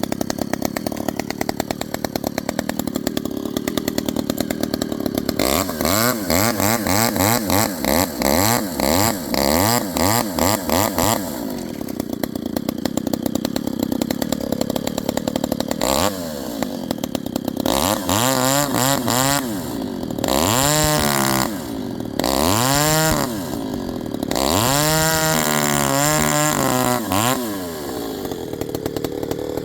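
Modified Stihl 029 chainsaw, fitted with a Chinese aftermarket motor and a pipe exhaust, running loud. It idles, is blipped in quick revs, then is held in longer revs that climb and drop back.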